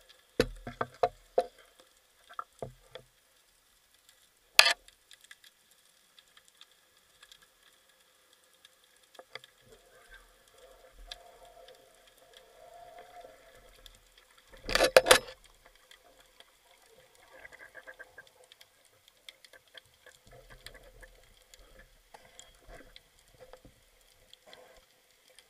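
Underwater: scattered clicks and knocks, with one sharp click about four and a half seconds in and a louder quick rattle of knocks about fifteen seconds in.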